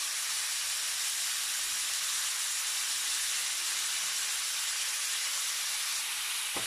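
Whole shell-on shrimp sizzling in hot oil in a pan: a steady, even hiss.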